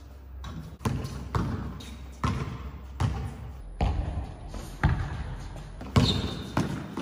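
Basketball being dribbled on an indoor court, sharp bounces roughly once a second, with a short high squeak near the end.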